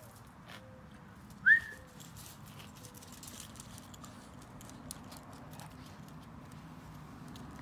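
A dog gives one short, high yelp that rises in pitch about a second and a half in, a play yelp between two dogs. Light clicking of dog claws on concrete runs through the rest.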